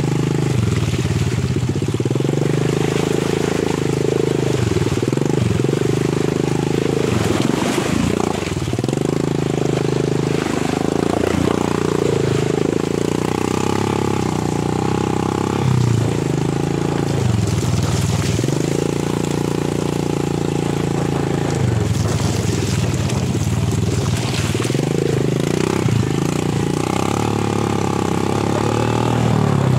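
Small motorcycle engine running under load, its revs dipping and climbing again every few seconds.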